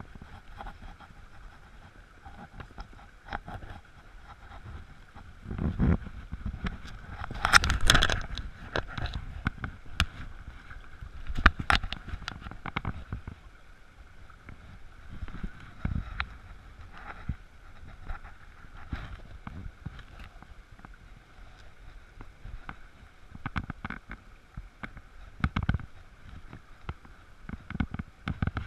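Shallow stream running over stones in a riffle, a steady rushing, with low rumbling buffets on the camera microphone and scattered sharp knocks, the loudest about eight and twelve seconds in.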